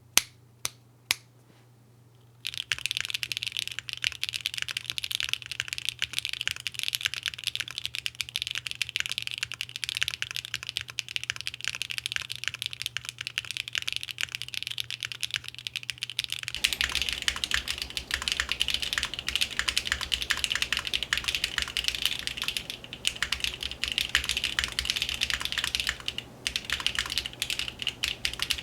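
Mechanical keyboard (Mode65 with HMX Xinhai switches, carbon fibre plate, no foam) being typed on: a few single keystrokes, then fast continuous typing from about two seconds in. Partway through, the keystrokes take on a deeper low end, over a steady low hum.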